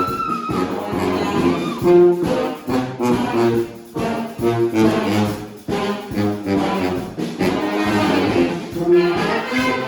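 Live brass band playing, horns sounding short punchy phrases over a steady beat.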